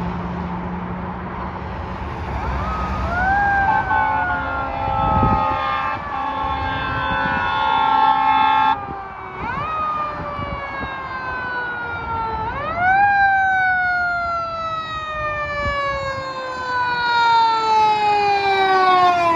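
Fire engine's siren sounding as the truck approaches: the siren rises quickly, then falls slowly over several seconds, three times. A steady horn blast lasts about five seconds and cuts off suddenly, about nine seconds in.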